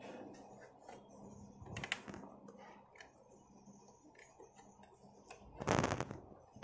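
Plastic motor unit of a 500 W mixer grinder being handled and turned over, giving small scattered clicks and knocks. A louder knock and scrape comes near the end as the unit is set back upright.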